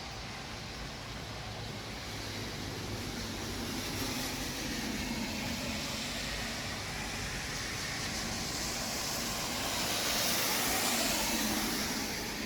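City street traffic: a steady hiss of vehicles on the road, swelling as cars pass about four seconds in and again near the end, then fading away.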